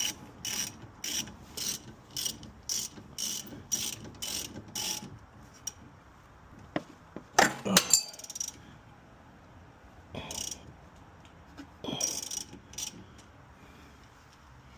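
Extendable ratchet wrench clicking as a brake bolt is spun, about two to three clicks a second for the first five seconds. A brief, louder metallic clatter comes around the middle, then a few more scattered ratchet clicks near the end.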